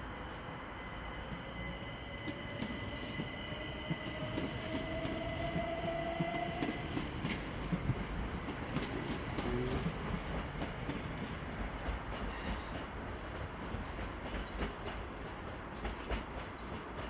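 Southern electric multiple unit moving through the station, its traction motor whine rising in pitch over the first several seconds as it gathers speed, with steady rumble and repeated clicks from the wheels over rail joints.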